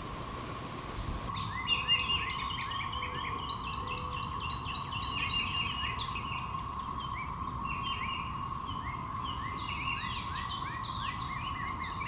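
A chorus of 13-year periodical cicadas (Magicicada) as a steady drone, with songbirds chirping repeatedly over it from about a second in.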